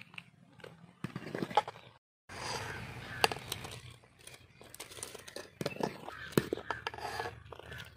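A long-handled metal ladle scrapes and knocks against the inside of a metal pot while rice is stirred in boiling water. There are a few sharp clinks, the loudest around the middle and in the second half.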